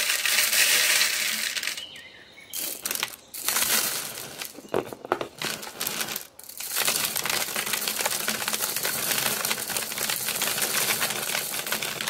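Sunflower seeds pouring through a plastic funnel into a plastic bottle, a dense rattling patter of seeds hitting plastic. It comes in several pours with short breaks, about two and six seconds in.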